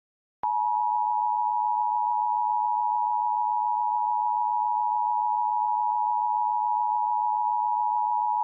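Emergency Alert System attention signal: two steady tones sounding together as one chord, starting about half a second in, held for about eight seconds and cutting off suddenly.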